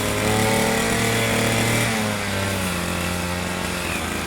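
A cutting machine's motor running steadily, its pitch dropping slightly about two seconds in.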